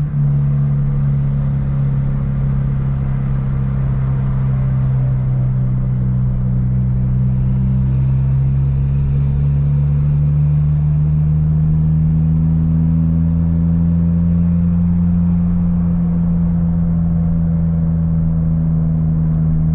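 Car engine and road rumble heard from inside the cabin while driving, a steady drone that slowly rises in pitch.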